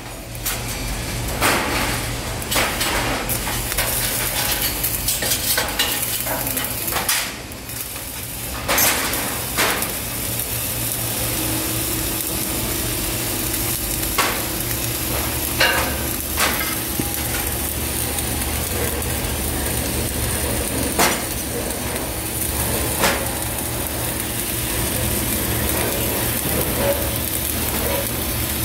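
CO2 gas-shielded arc welding (MAG) on a steel H-beam corner joint: the arc gives a steady frying crackle, with sharper pops of spatter here and there.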